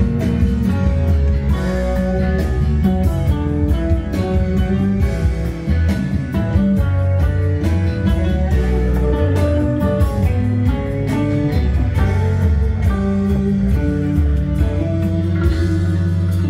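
Recorded music with a strong bass line and sustained melodic notes, played back over a high-end hi-fi system through Lansche loudspeakers with plasma tweeters.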